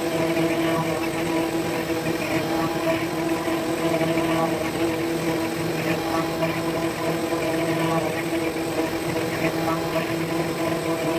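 Hobby CNC router carving a 3D relief in wood: the spindle runs with a steady whine while the fine bit cuts, and a rougher cutting noise comes and goes as the bit moves along its path.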